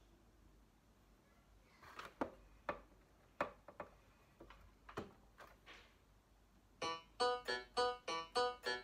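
A few scattered knocks and clicks, then near the end a portable electronic keyboard in a piano voice starts a quick run of short, separate notes, about four a second.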